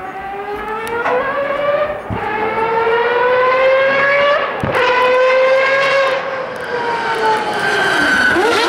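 Mazda 787B's four-rotor R26B rotary engine accelerating hard, its note rising through the gears with upshifts about one, two and four and a half seconds in, growing louder as the car approaches. The note then sinks over the last couple of seconds as the car comes close and passes.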